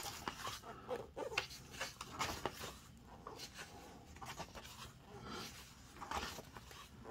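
Pages of a large illustrated book being turned by hand one after another, the paper rustling and flicking in quiet, irregular swishes.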